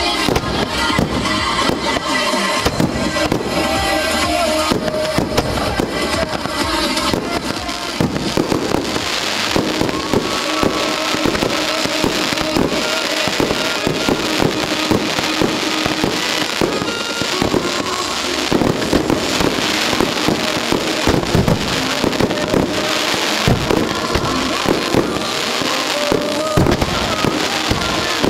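Aerial fireworks shells bursting in a dense, unbroken run of bangs and crackles, with the show's music playing underneath.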